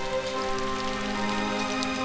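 Rain falling steadily, with scattered faint drop ticks, under a slow musical score of long held notes that change pitch now and then.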